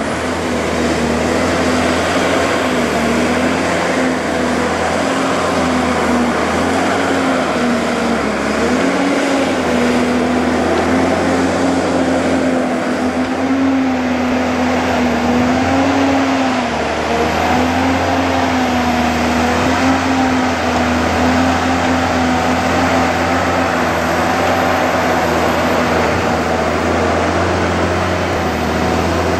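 Diesel engine of a loaded forestry forwarder running steadily as the tracked machine drives over the forest floor, a droning hum whose pitch wavers slightly.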